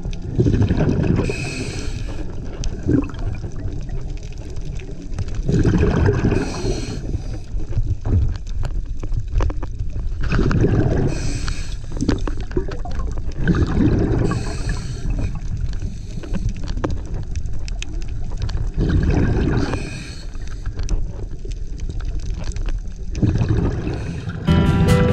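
Scuba diver breathing through a regulator underwater: a burst of bubbling exhaled air with a short hiss every four to five seconds. Music comes in just before the end.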